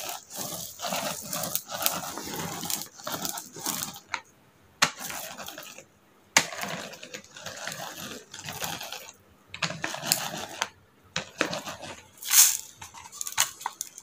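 Hand-pushed manual roller-brush sweeper (no motor) swept back and forth over a bedsheet in repeated strokes with short pauses. Its brush rollers rustle on the fabric and scattered rice grains click and rattle as they are picked up.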